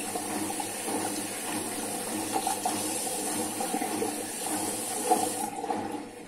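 Water running from a bathroom tap while hands are rinsed under it, shut off about five and a half seconds in.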